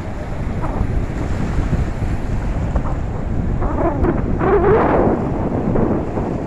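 Wind buffeting the microphone over the steady wash of choppy sea water and distant surf, with the water noise swelling louder for a moment about four seconds in.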